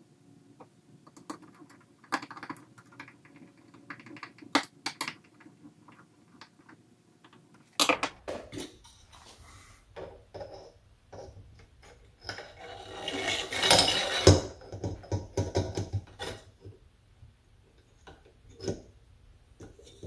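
Workbench handling noises: scattered clicks, taps and knocks of a metal bracket, lamp pole and tools on a countertop, with a louder, denser stretch of noise lasting about two seconds a little past the middle.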